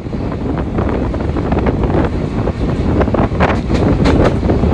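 Wind buffeting the microphone at the open door of a fast-moving passenger train, over the steady rumble of the running train, with irregular knocks and clatter that thicken around three to four seconds in.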